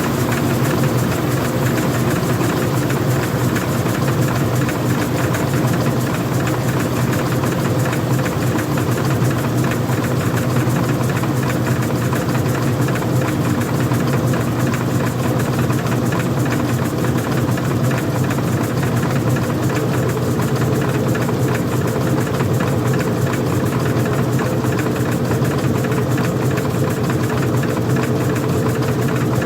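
Old-style front-loading washing machine running with its cover off: a steady mechanical hum from its motor and drive, with a faint higher tone joining about two-thirds of the way through.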